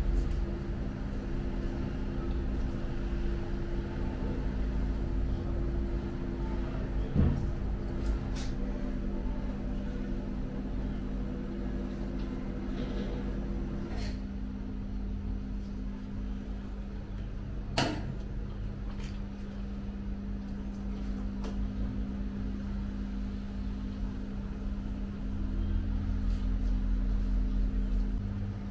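A steady low machine hum fills a small kitchen, with soft handling noises of raw meat being pressed onto a vertical döner skewer. Two sharp knocks sound, one about a quarter of the way in and one a little past the middle.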